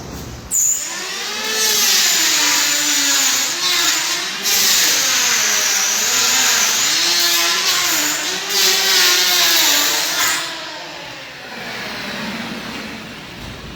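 A motor running loud for about ten seconds, starting abruptly, its pitch dipping and rising several times under a strong hiss, then fading away.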